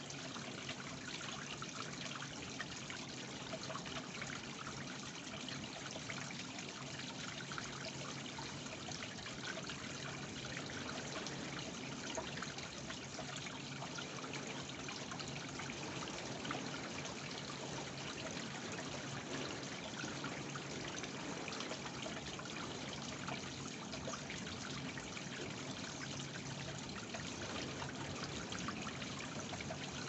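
Small stepped stone waterfall trickling and splashing steadily into a garden koi pond.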